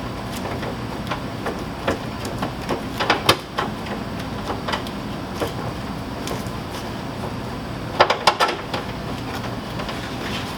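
Scattered clicks and knocks from handling a Toyota Sienna's rear door handle assembly and its cable during fitting, with a quick cluster about three seconds in and another about eight seconds in, over a steady hiss.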